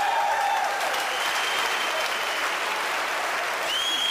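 Crowd applauding. A high whistle rises and then holds near the end.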